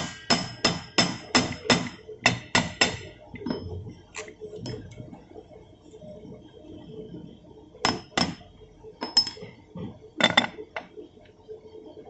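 Steel parts of a backhoe planetary gear set struck and clinked together during reassembly. A quick run of sharp, ringing metal-on-metal strikes comes about three a second over the first three seconds, then scattered single strikes, with a loud pair about ten seconds in.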